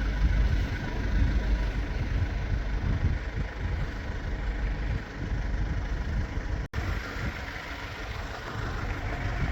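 Low, rumbling wind noise buffeting the microphone outdoors, fluctuating unevenly, with a brief cut-out about two-thirds of the way through.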